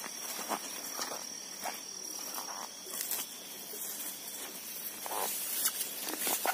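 Footsteps rustling through long grass, over a steady high-pitched insect drone.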